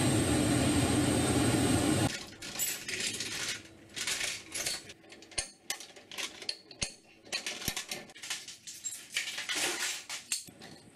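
Loud steady aircraft engine noise with a low hum, cut off suddenly about two seconds in. Then steel tie-down chains rattle and clink irregularly as a helicopter's nose landing gear is chained down.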